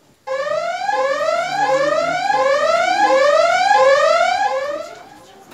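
Electronic whooping alarm: a pitched tone that sweeps upward about seven times in quick succession, starting suddenly and fading out near the end.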